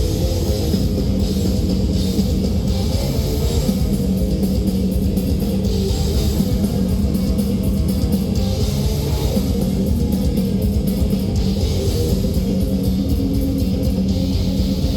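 Live progressive death metal band playing: guitar riffing over bass guitar and fast, dense drumming, steady and loud with no break.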